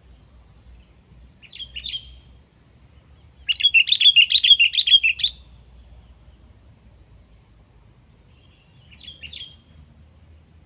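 Sooty-headed bulbul calling: a short chirping phrase, then a loud run of about ten quick notes lasting nearly two seconds, and another short phrase near the end. A faint steady high-pitched hiss runs underneath.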